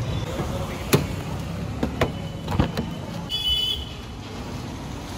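Street traffic noise with a car engine running close by, its low rumble easing off after about three seconds. A few sharp clicks or knocks come through, and a brief high tone sounds around the middle.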